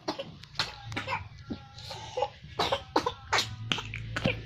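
A person sick with a cough, coughing again and again in a quick run of short, hacking coughs.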